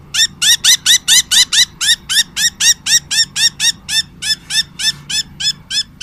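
A budgerigar calling in a fast, even series of short rising squawks, about five a second, spacing out slightly near the end. The calls come from a hen budgie being held on her back while a sore leg is examined, a bird the keeper says is in a lot of pain.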